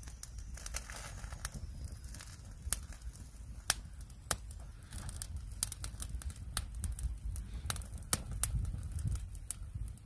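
Small campfire of thin sticks crackling, with many irregular sharp pops over a steady low rumble.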